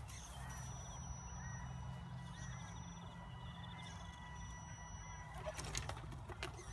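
Quiet outdoor background: faint bird calls over a low steady rumble, with a few sharp clicks about five and a half seconds in.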